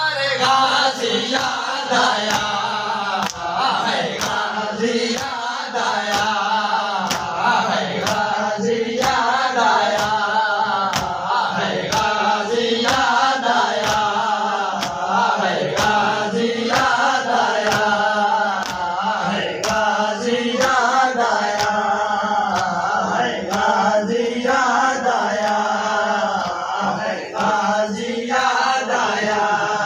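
Men's voices chanting a noha together, with sharp slaps of hands on chests (matam) keeping a steady, even beat under the chant.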